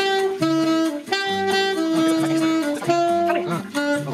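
Background music: an alto saxophone plays a bossa nova melody in held notes over a light backing.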